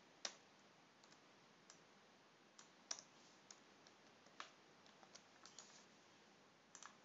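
Faint, scattered clicks of a computer keyboard and mouse, about a dozen single clicks spread unevenly with pauses between them.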